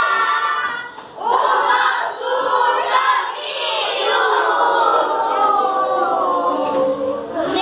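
A class of children singing a song together in chorus, with a short break in the voices about a second in.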